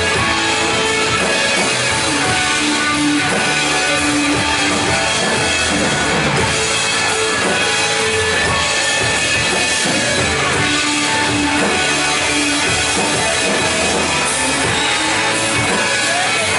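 Loud, steady rock-style band music with guitar and drums.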